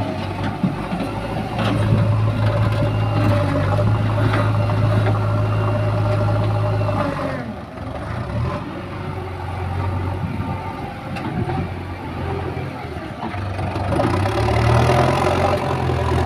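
JCB 3DX backhoe loader's diesel engine running under load as the machine manoeuvres, easing off about halfway through and picking up again near the end as the front loader bucket is lifted.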